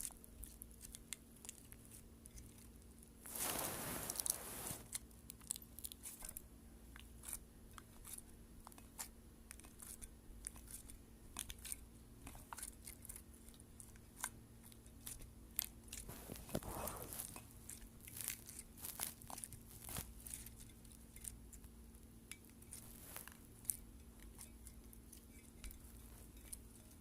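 Slime being squeezed and worked by hand, giving faint crackling and popping clicks throughout, with a louder, longer stretch of noise about three seconds in and a shorter one around seventeen seconds.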